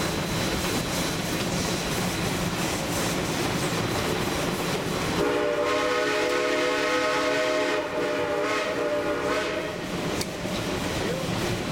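Shay steam locomotive's whistle blowing one long blast of several tones sounding together, starting about five seconds in and lasting about four and a half seconds, over the steady running noise of the train on the narrow gauge track.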